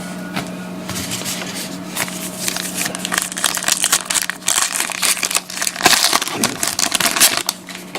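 A baseball card pack's wrapper being torn open and crinkled by hand, with a dense run of crackles that grows busier about two seconds in.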